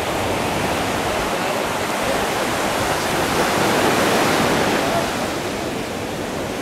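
Surf breaking on a sandy beach: a steady wash of waves, growing louder about three to five seconds in as a wave breaks close by.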